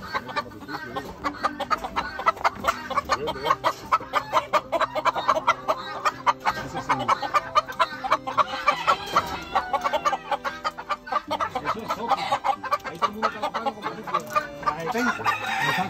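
Caged gamecock roosters clucking in a rapid run of short calls, with a rooster crowing about halfway through and again near the end.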